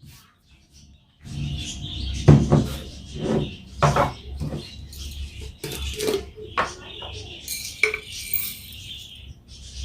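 Household items clinking and knocking as they are handled and set down, in half a dozen sharp clatters, over a steady background noise that starts about a second in.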